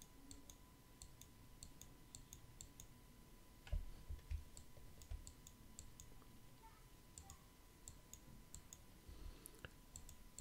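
Faint, scattered clicks of a computer mouse being worked, with a few soft knocks about four seconds in, over near silence.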